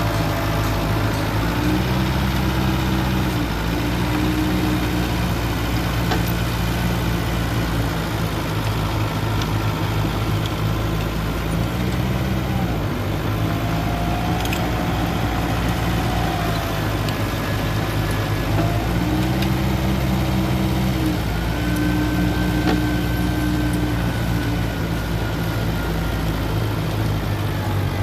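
Mitsubishi BD2E bulldozer's diesel engine running while it works, its engine speed rising for a second or two three times as it takes up and lets off load.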